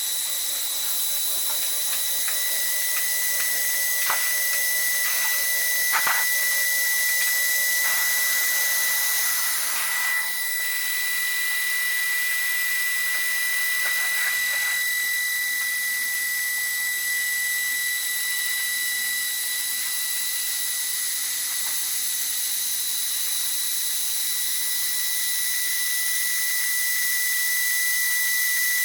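High-speed air-cooled CNC lathe spindle running with a steady high-pitched whine over a hiss while milling acrylic round bar, with scattered clicks and knocks in the first half.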